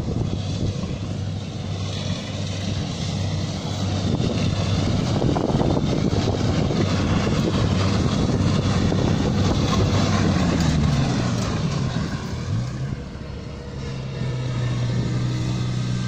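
Kubota tracked rice combine harvester working through the field, its engine and threshing machinery running steadily. Its note slides down about eleven seconds in, then holds steady again.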